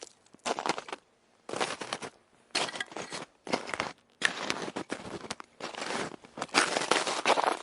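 Footsteps crunching on ice, a gritty crunch roughly once a second with short quiet gaps between steps.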